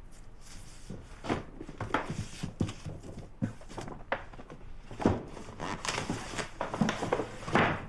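Irregular light knocks, clicks and rustles of objects being handled.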